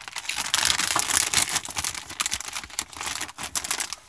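A Doritos Dinamita chip bag crinkling as a hand rummages in it: a dense, loud run of crackles that dies away near the end.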